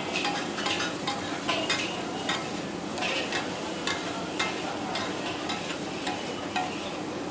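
Gurda masala frying with a steady sizzle, while a metal spatula stirs it and strikes the pan again and again, each hit ringing briefly.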